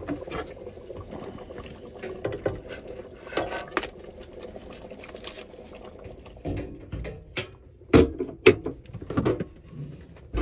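Naan frying in butter in a skillet on a propane camp stove, sizzling, with scattered clinks of tongs against the pan and plate. Sharp knocks come twice, about eight seconds in.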